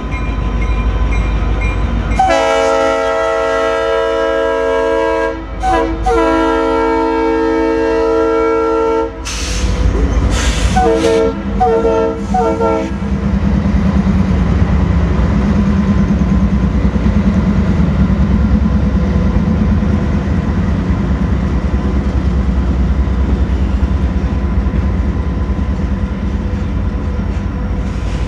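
Diesel freight locomotive horn sounding a multi-note chord: two long blasts, then a few short broken ones, over the low rumble of the passing train. After the horn stops, covered hopper cars roll by with steady wheel rumble and clickety-clack.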